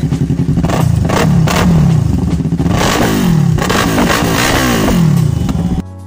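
Yamaha R3's parallel-twin engine through a Yoshimura aftermarket exhaust, idling and then revved in several quick throttle blips, the pitch falling back after each one. The engine sound cuts off just before the end.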